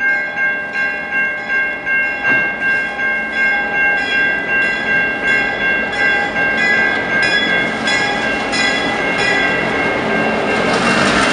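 Locomotive bell on a CN GP-9 and slug set ringing steadily as the train approaches, struck just under twice a second. Near the end the noise of the diesel locomotive and its wheels passing close grows over the bell.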